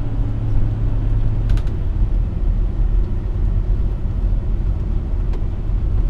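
Inside the cab of a 2001 Chevy Fleetwood Tioga Arrow Class C motorhome on the move: its 7.4-litre Chevy 454 V8 and the road noise make a steady low rumble.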